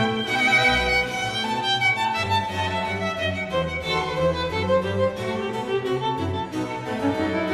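Background music led by violin-like bowed strings over a steady bass beat.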